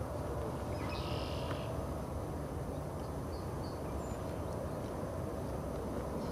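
Distant steady rumble of a Boeing 787-8's Rolls-Royce Trent 1000 jet engines as the airliner rolls out along the runway after touchdown. A few faint bird chirps come about a second in and again around three seconds.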